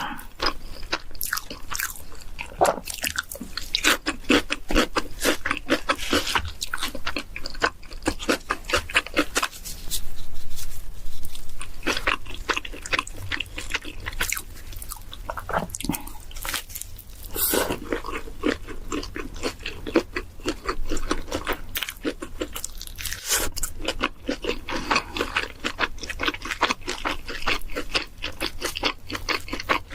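A person biting and chewing pizza, with crunching crust and wet chewing in quick clicking runs.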